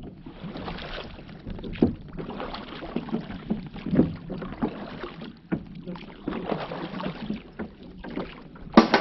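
Oars rowing a small home-built wooden sailboat, a Kanot Yawl 400. Each stroke brings a knock of the oars in their oarlocks and a swish of water, over light wind noise.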